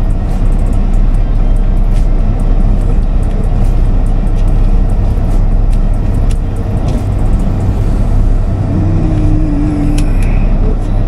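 Semi truck's diesel engine running steadily and loudly, with a brief steady higher tone about nine seconds in.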